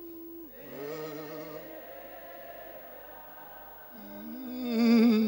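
A voice singing a slow song in long, drawn-out notes with vibrato, swelling loudest near the end.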